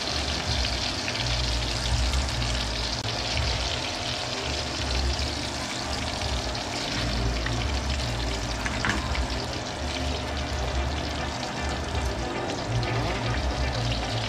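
Breaded barracuda frying in a pan: a steady sizzle and crackle, with music playing underneath.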